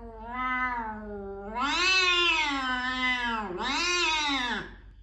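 Domestic cat yowling during a face-off with another cat: a long, wavering, drawn-out call that swells louder about a second and a half in. It breaks briefly past the three-second mark, and a second yowl follows and fades out near the end.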